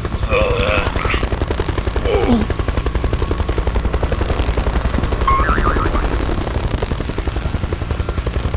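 A small engine running with a fast, even chugging that holds steady throughout.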